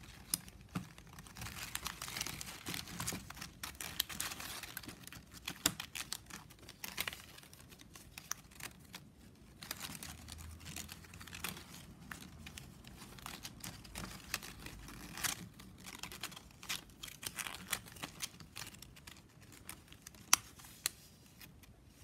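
Blue plastic strapping band crinkling and scraping as it is handled and threaded through the weave, with irregular small clicks and ticks as the strips slide and snap against each other. One sharper click comes near the end.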